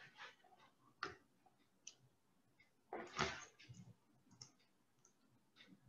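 Faint, scattered clicks and taps, a few of them spread a second or so apart, from the pen and eraser tools being picked and worked on screen, with one louder knock about three seconds in.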